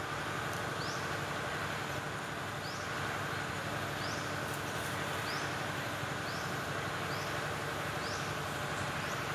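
Steady chorus of forest insects, an even hiss, with a short high rising chirp repeating about once a second.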